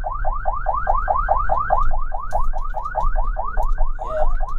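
Ambulance's electronic siren on fast yelp, a rapid train of rising whoops about six a second, over a low steady rumble.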